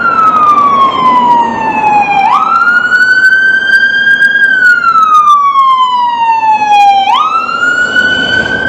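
Ambulance siren wailing loudly. The pitch slides slowly down, then sweeps quickly back up twice, about five seconds apart, over traffic noise.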